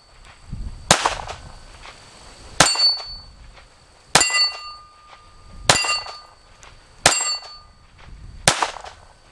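Six shots from a Taurus Spectrum .380 ACP pistol, fired at an even pace about a second and a half apart, most followed by the ringing ping of a hit steel target.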